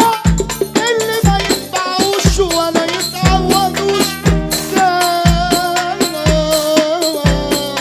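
Egyptian sha'bi wedding music: a wavering melody line over a heavy, steady low drum beat and dense rattling, shaker-like percussion.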